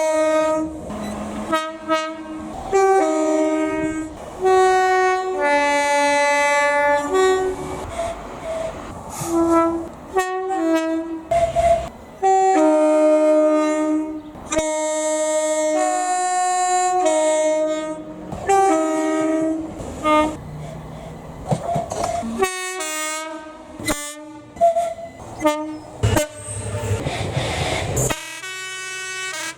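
British train horns sounding in quick succession, notes stepping between higher and lower pitches in multi-tone sequences. Several horn passages are joined by abrupt cuts.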